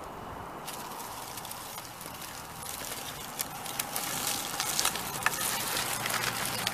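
Axial SCX10 RC rock crawler crawling over dry leaves and twigs: the tires crackle the leaves, with a faint electric motor whine. The crackling grows louder and denser about three seconds in as the truck comes close.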